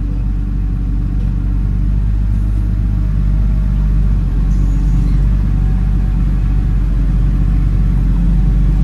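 Caterpillar 930H wheel loader's six-cylinder diesel engine running steadily as the loader moves, heard from inside the cab as a low drone.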